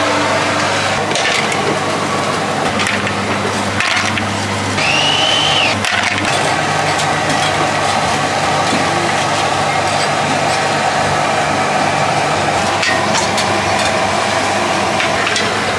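Busy street-stall ambience: a steady low motor hum under a constant noisy din, with scattered clicks and knocks. A brief high whistle-like tone rises and falls about five seconds in.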